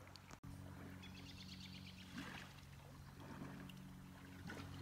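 Faint, steady low drone inside a moving car's cabin: engine and road hum, broken by a brief gap about half a second in.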